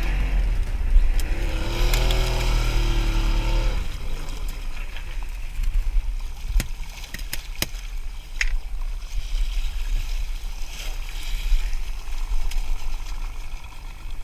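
Small fishing boat's outboard motor running with a low rumble, revving up and back down in the first few seconds, with water noise. A few sharp knocks come in the middle.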